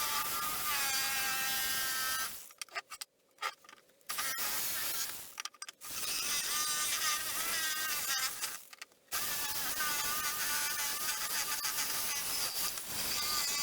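A handheld electric power tool whining under load, cut off and restarted twice, as in grinding or sanding metal.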